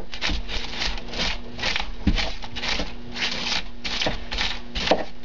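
Rigid extruded polystyrene foam being scraped and carved by hand: a rhythmic scratching of about three strokes a second.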